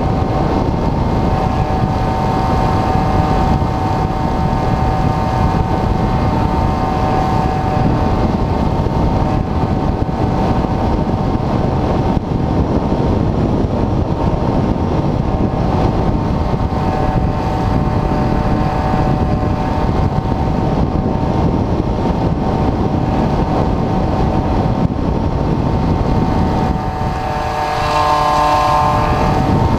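Wind rushing over the onboard camera of an Airfield Extreme Surfer 2400mm RC glider in flight, with the steady whine of its electric motor and propeller. Near the end the wind rumble eases for a couple of seconds while the whine grows stronger.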